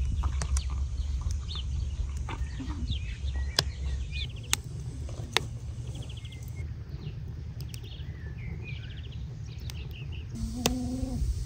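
Small birds chirping in short, scattered calls over a steady low rumble, with three sharp clicks in the middle. Near the end a lower, wavering animal call begins.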